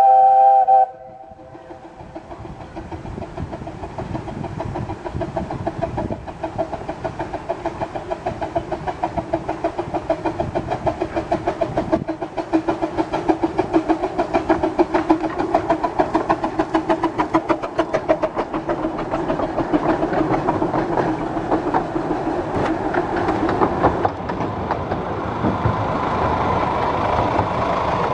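Small steam locomotive on a 15-inch-gauge line gives a short whistle blast, then its exhaust chuffs in a steady beat of about three to four a second, growing louder as the train approaches. In the last few seconds the beat gives way to a steadier running noise.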